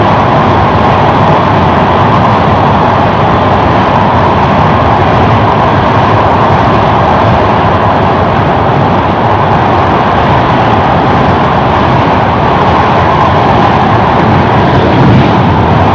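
Passenger train running at speed over a steel truss bridge: a loud, steady rush of wheels on rails mixed with wind blowing across the microphone held out of the open window.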